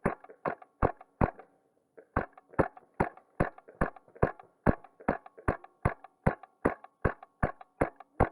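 Wolverine MTW HPA airsoft rifle firing in steady semi-automatic shots, about two and a half a second. There are about twenty sharp pneumatic cracks, with a short pause after the first four.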